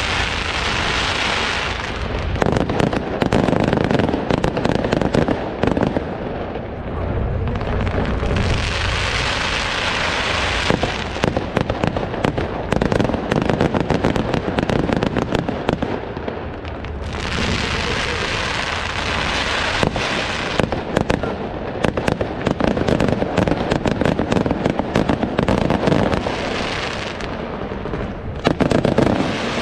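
Aerial fireworks display: a rapid, irregular series of shell bursts, bangs and pops throughout, with three stretches of steady hiss between them.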